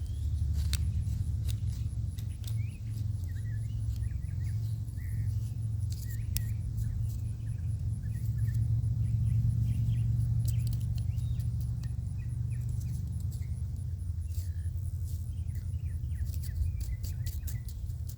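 Pocket knife scratching and cutting through soil and weeds around onion seedlings: irregular small clicks and scrapes over a steady low rumble.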